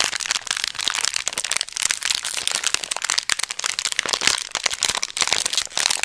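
Plastic candy wrapper crinkled in the hands close to the microphone: a dense, unbroken crackle.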